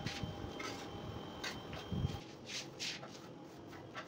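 Hand-tool handling noises while working on a tile job: a few short scrapes and taps at irregular moments, with a couple of low thumps about halfway. A faint steady high tone sounds in the background and stops about halfway through.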